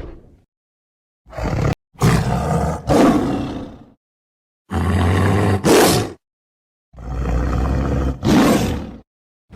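Tiger roaring: about half a dozen short, rough roars, mostly coming in quick pairs, with abrupt dead-silent gaps between the groups.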